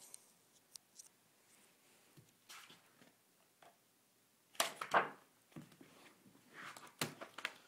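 Chemistry textbook and paperback solutions manual being handled: a few brief rustles of covers and pages with light taps, the loudest about five seconds in and another cluster near the end.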